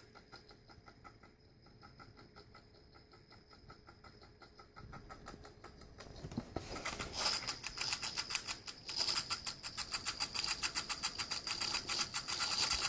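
Sony Vaio laptop making a rapid, rhythmic ticking noise, faint at first and growing louder about seven seconds in. This is the laptop's annoying fault noise, which the owner guesses comes from the part he calls the heater and says shows up under heavy load.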